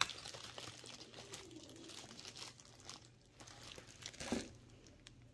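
Plastic packaging crinkling as it is handled, with a louder rustle a little after four seconds in.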